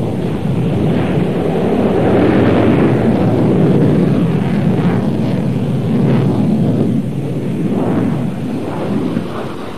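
Jet noise of a Dassault Mirage 2000 fighter flying its display: a loud, steady, rushing roar that eases slightly near the end.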